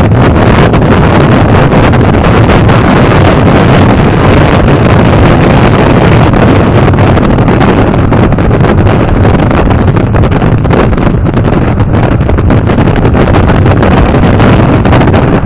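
Car tyres running over the open steel-grid deck of the Mackinac Bridge: a loud, steady hum and rumble. It is mixed with wind buffeting through the open car windows.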